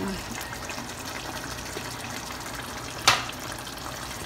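Pot of ground beef, potato and tomato-sauce stew simmering on the stove, a steady bubbling hiss. There is one sharp knock about three seconds in.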